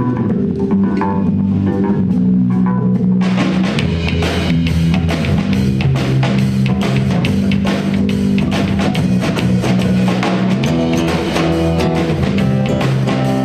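Live band music: an electric bass line over a drum kit, with the full kit and cymbals coming in about three seconds in.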